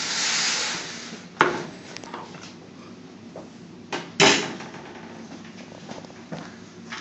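Kitchen handling noises: a short rush of noise at the start, then two sharp knocks of containers or utensils about a second and a half and four seconds in, the second the louder with a short ring, and a few light clicks between.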